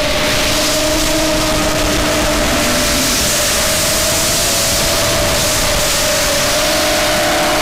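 Outlaw X Frame quadcopter's motors and propellers whining steadily, heard from the camera on the craft, with a steady rushing hiss of air over the microphone. The whine wavers slightly in pitch and rises a little near the end.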